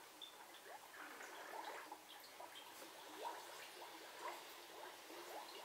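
Faint water sounds from a glass tank as hands work under the water: scattered dripping and small bubbling blips, each a short rising plip, a few slightly louder about three and four seconds in.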